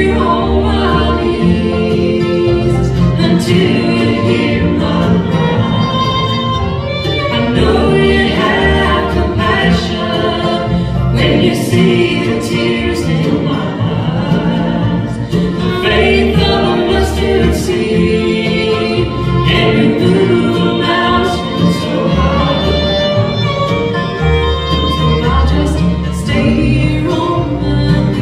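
Bluegrass gospel band playing live on acoustic instruments (fiddle, mandolin, banjo, dobro, acoustic guitar and upright bass) with singing over them.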